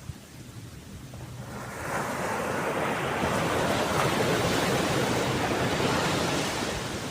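Ocean waves washing ashore: one wave swells in from about a second and a half in, holds as a loud rushing wash for a few seconds, then ebbs away near the end.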